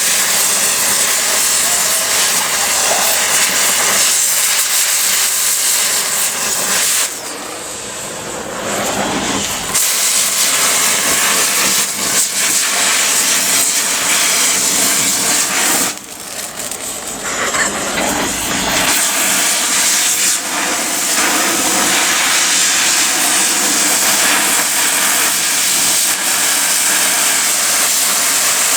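Steady, loud hiss of flame as a phone burns, dropping away briefly twice.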